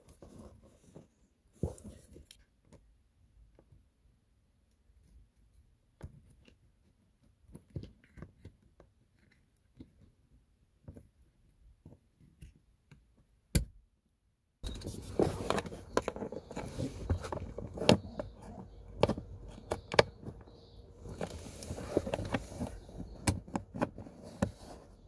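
Plastic clicks and handling noise as a wiring connector is plugged onto a console flood-light housing and the lamp is fitted back into its opening in the console trim. There is one sharp snap about halfway through, then denser clicking and rubbing over a faint steady hum in the second half.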